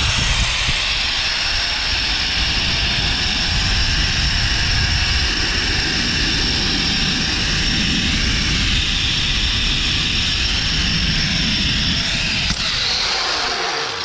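Zip line trolley pulleys running fast along the steel cable: a steady high whine over heavy wind rumble on the microphone. The whine rises in pitch at first, and the whole sound slows and dies away near the end.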